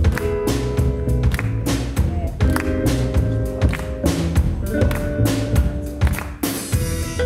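Live jazz trio playing instrumental music: drum kit keeping time with regular strokes under keyboard chords and upright double bass. A cymbal wash swells near the end.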